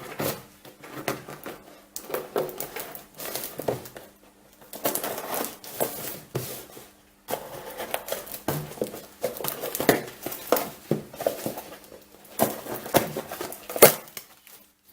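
Cardboard box being handled and opened: irregular scraping, rustling and sharp clicks, with a short pause around the middle.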